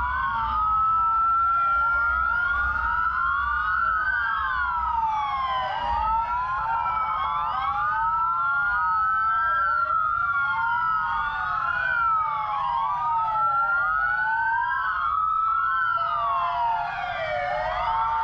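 Several emergency-vehicle sirens wailing at once, their rising and falling tones overlapping, over a low rumble.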